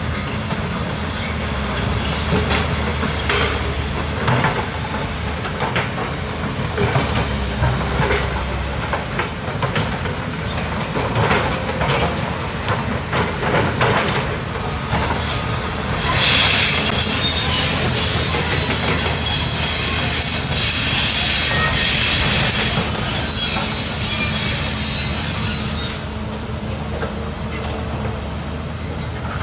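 Large crawler excavator working, its diesel engine running steadily under load, with repeated metallic clanks and knocks. A high metallic squeal rises over it a little past the middle and lasts about ten seconds before easing off.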